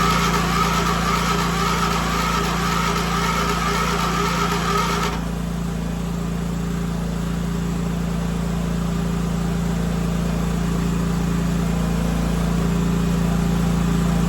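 Small lawn-tractor engine running steadily, with a loud rushing noise over it that cuts off suddenly about five seconds in, leaving the engine note alone.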